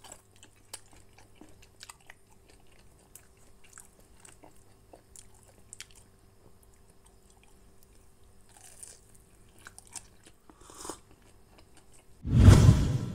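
Faint clicks and crackles of gloved hands handling fried pempek ada'an on baking paper, with soft crunchy, chewing-like food noises. Just after twelve seconds a loud burst of noise, heaviest in the low end, hits suddenly and dies away over about a second.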